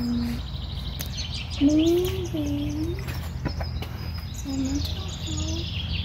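Small birds chirping: short high chirps scattered through, over a steady low background rumble. A few short hummed or murmured voice sounds come and go between them.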